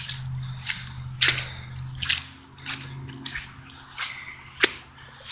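Wet quicksand squelching as feet and legs are worked free of it: a string of short, irregular wet squelches.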